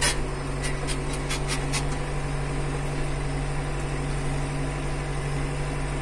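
Tractor engine running steadily, heard from inside the cab as it drives across the pasture, with several short clicks in the first couple of seconds.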